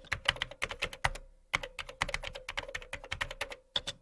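Typewriter sound effect: rapid key strikes clacking in quick runs, with a short pause about a second in and another near the end, over a faint steady hum.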